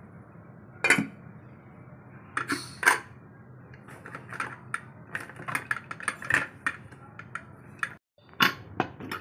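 Metal cookware being handled: a pressure cooker's stainless-steel lid clanks and clicks as it is worked open. There is a sharp clank about a second in and two more near three seconds, then a run of lighter clicks and knocks, with a steady low hum underneath.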